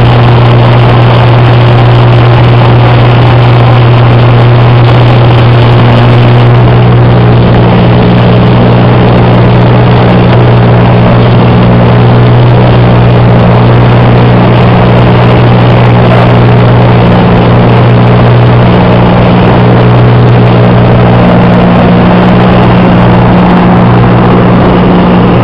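A light aircraft's engine and propeller drone steadily, heard loud inside the cockpit over rushing air noise. The tone of the drone shifts slightly about six seconds in.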